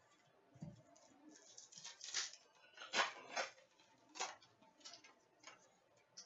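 Hockey trading cards being handled and flipped through: faint, irregular scrapes and clicks of card sliding on card, a few sharper ones in the middle.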